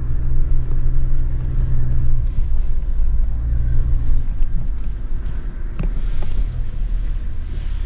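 Chevrolet Silverado 1500 pickup rolling slowly over a dirt track, heard from inside the cab: a steady low engine and road drone whose note drops about two seconds in as the truck slows. A single sharp click comes near the end.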